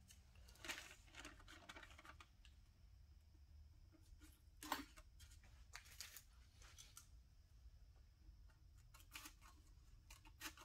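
Near silence, broken by faint, scattered snips and rustles of a paper template being handled and cut by hand.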